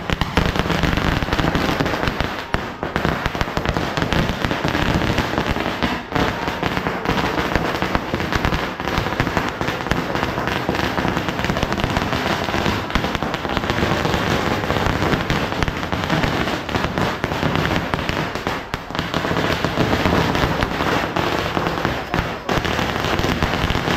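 A long string of firecrackers laid along the street going off in a dense, unbroken rattle of rapid cracks and bangs, starting abruptly as it catches.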